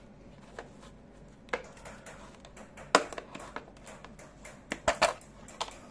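Clear plastic hinged case being handled and its snap latch worked open: a series of small plastic clicks and taps, the loudest about halfway through and again near the end.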